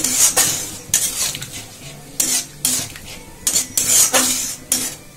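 Metal spatula scraping and stirring thin gravy in a metal kadai, a run of irregular scrapes against the pan. Under the scrapes the watered masala sizzles lightly.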